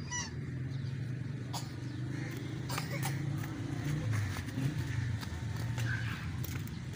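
Steady low engine rumble, like a motor vehicle running nearby, with a few light clicks scattered through it.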